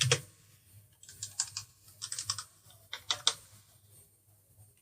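Typing on a computer keyboard: quick runs of key clicks in four short bursts, stopping after about three and a half seconds.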